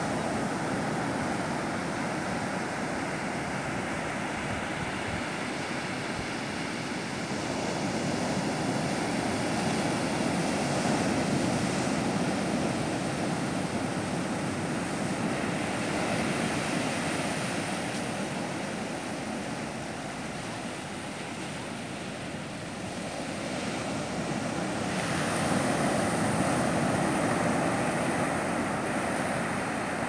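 Pacific Ocean surf breaking and washing up a sandy beach: a steady rush of water that swells and eases. It is louder about a third of the way in and again near the end, and quieter a little past the middle.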